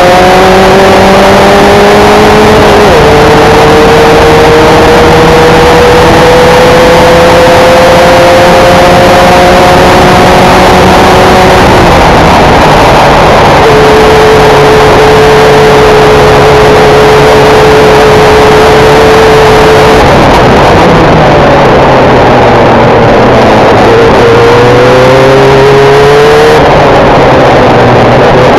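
Formula 1600 race car engine running hard and very loud. Its pitch climbs slowly after a shift about three seconds in, holds steady for a while, falls away after about twenty seconds, then rises again in short climbs broken by a quick drop, over a constant rushing noise.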